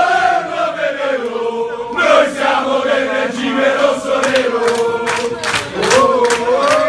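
A room full of men chanting a football ultras' chant together in unison. From about five seconds in, it is accompanied by rhythmic handclaps.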